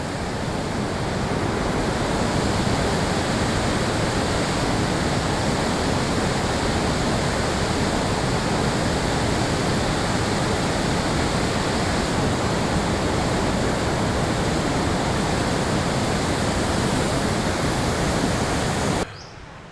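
A waterfall in strong flow, with a heavy volume of water pouring over rocks. It makes a steady, even rush of falling water that cuts off suddenly near the end.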